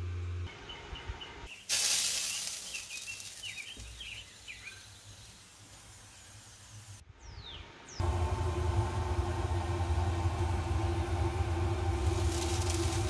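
A sudden hiss with birds chirping that fades away, then, about two-thirds of the way through, a steady mechanical hum with a deep drone and higher overtones starts abruptly.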